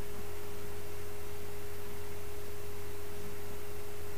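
A steady pure tone held at one mid-low pitch, unchanging, with a low hum beneath it.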